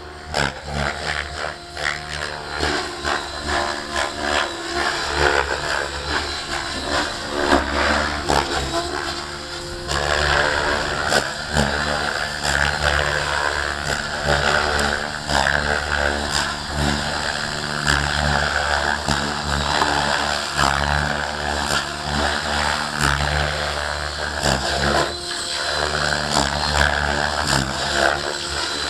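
Align T-Rex 700 radio-controlled helicopter in flight: the steady drone of its motor and spinning rotors, rising and falling as it manoeuvres, louder and brighter from about ten seconds in.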